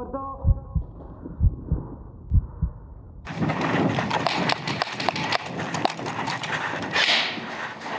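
Muffled heartbeat sound effect, a slow lub-dub pair of low thumps about once a second over dulled audio. About three seconds in it cuts to clear outdoor sound: footsteps crunching on dry dirt, with gear and clothing rustling.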